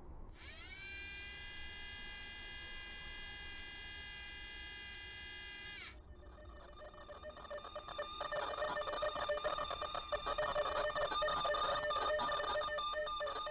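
Electronic soundtrack sound: a high, steady whine that slides up in pitch as it starts, holds, and cuts off abruptly about six seconds in. It is followed by layered sustained electronic tones with a flickering texture that slowly grow louder.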